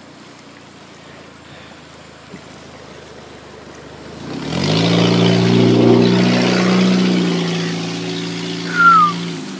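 Low rush of fast floodwater, then about halfway in a motor vehicle comes close and runs loud with its engine hum and tyre hiss, holding until the end. A short high falling chirp sounds near the end.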